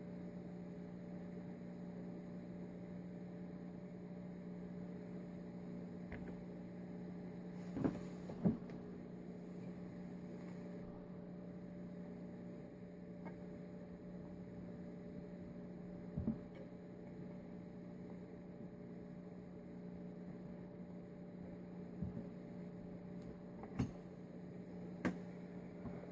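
Steady electrical mains hum, with about half a dozen light clicks and taps of small carburettor parts and tools being handled, two close together about eight seconds in.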